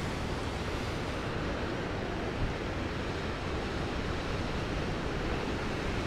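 Ocean surf breaking on rocks: a steady rush of waves, with wind rumbling on the microphone.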